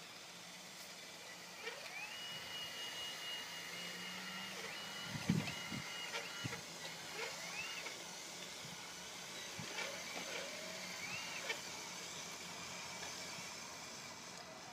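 Electric drive of a radio-controlled model Liebherr 576 wheel loader whining as it drives, pulling a lawn roller. The high whine rises in pitch, holds steady, then drops away, several times as the model speeds up and slows. A few light knocks come about five seconds in.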